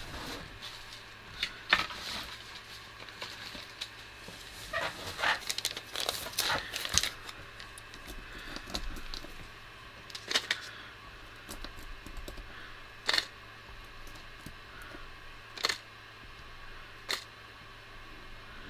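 Small screws and parts being handled and dropped into a plastic baggie: scattered sharp clicks and plastic crinkling, with a burst of rustling a few seconds in.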